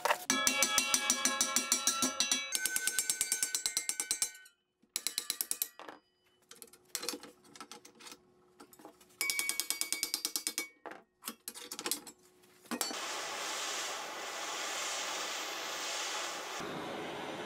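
Several bursts of fast, evenly spaced metallic clicking with a ringing tone. Then, from about thirteen seconds in, a handheld gas torch hisses steadily as its flame heats an aluminium angle-frame joint.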